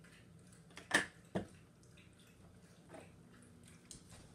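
Plastic knocks and clicks from the tank of a Bissell Big Green carpet cleaner being handled: two sharp knocks about a second in, then a couple of fainter taps.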